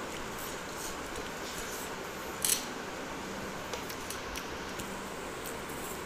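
Eating by hand from a steel plate: quiet sounds of fingers working rice and chewing, with one brief sharp crackle about two and a half seconds in, over a steady hiss.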